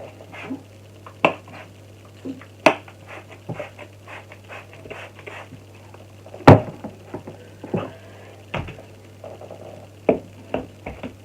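Irregular knocks, taps and handling noises, the loudest a sharp knock about six and a half seconds in, over a steady low hum.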